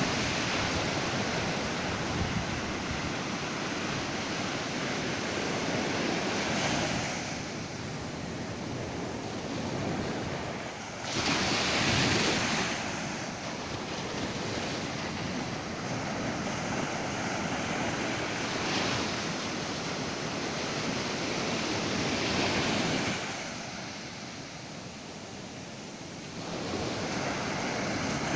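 Ocean surf: waves breaking and washing up the beach in a continuous rush that swells and eases every few seconds, the loudest wave about twelve seconds in. Wind rumbles on the microphone.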